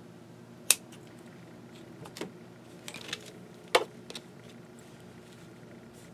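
Fabric scissors trimming lace: a few sharp metallic clicks of the closing blades, the loudest about a second in, then a clack as the scissors are set down on the work table just before four seconds in.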